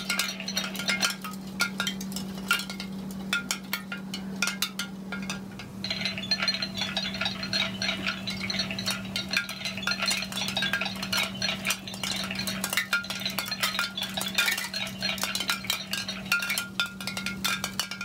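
Gemmy animated bone wind chime, its bones knocking together in quick, irregular clinks with ringing chime tones. The clinking gets busier about six seconds in, over a steady low hum.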